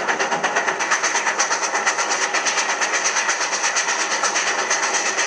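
Steam locomotive running at speed: a fast, even beat of about five or six hissing exhaust chuffs a second.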